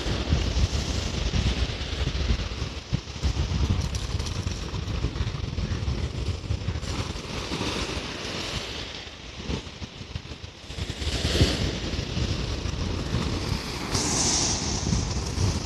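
Wind buffeting the microphone over the hiss of ocean surf breaking on rocks. The surf swells louder near the end.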